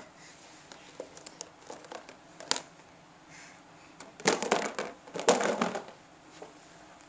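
Crinkling and clattering handling noise as a toddler plays with a plastic box and a soft toy on carpet: scattered faint clicks, then two short dense bursts of crinkling about four and five seconds in.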